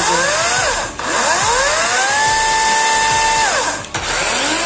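Battery chainsaw's electric motor revved with the chain running free: a short burst, then a longer run that whines up, holds steady about a second and a half and spins down, and another starting to rise near the end.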